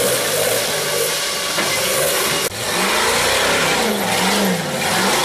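Off-road rock-crawler buggy engine revving hard under load as it climbs rocks, with a steady gritty noise of spinning tyres and flying dirt. After an abrupt cut about halfway through, another buggy's engine revs up and down in quick surges, a little under twice a second.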